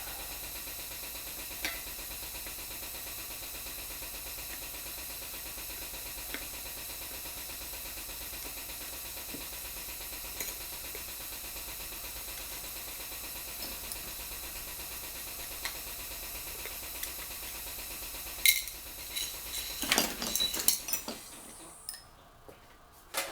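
Steady background hiss with a few faint clicks. Near the end, a sharp metallic click is followed by a short run of clinks and clatter from small metal tools and engine parts being handled on a workbench.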